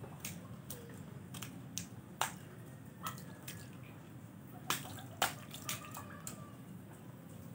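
A toddler's hands and bare feet patting and splashing in a shallow rain puddle on paving: irregular small splashes and slaps, the sharpest about two seconds in and two close together around five seconds in.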